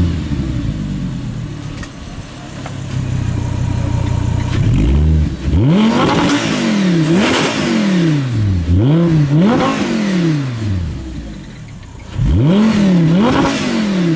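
A car engine being revved repeatedly. Between blips it idles steadily, then comes a rapid run of throttle blips with the pitch sweeping up and falling back, and two more revs near the end.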